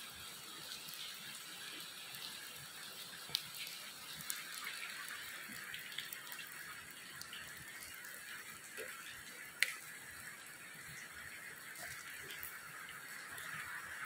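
Steady rush of falling water from a waterfall, fairly faint, with two sharp clicks about three and ten seconds in.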